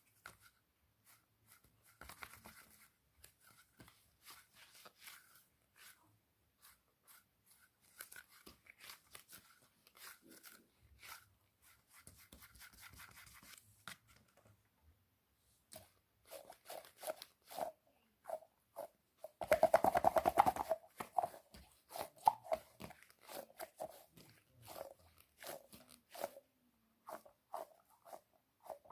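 Squishy toys being squeezed and handled, giving many short crinkling, crackling sounds, with a louder dense burst about two-thirds of the way through.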